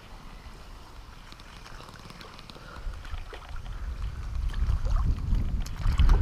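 Low wind rumble on the microphone that swells over the last few seconds and is the loudest thing, over light splashing of a hooked fish thrashing at the water surface.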